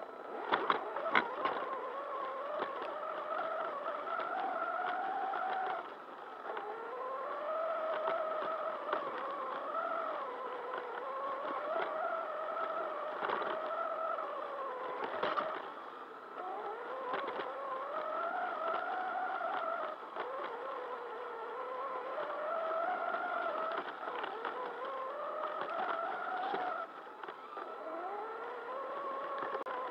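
Electric RC car drivetrain whining, its pitch rising and falling as the throttle is worked, with a few knocks as the car bounces over rough ground.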